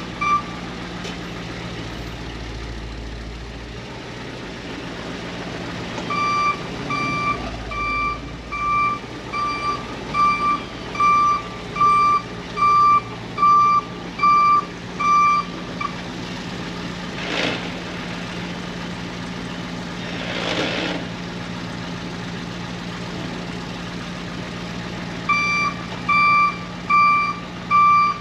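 Dump truck's backup alarm beeping about one and a half times a second over the steady running of its 7.3 IDI diesel engine. The beeping stops for about nine seconds in the middle, when two short hisses sound, then starts again.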